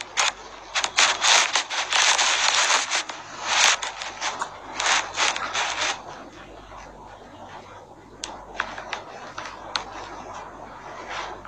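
Scratchy rubbing noise on the microphone, coming in loud irregular bursts for about six seconds, then dying down to a few faint clicks.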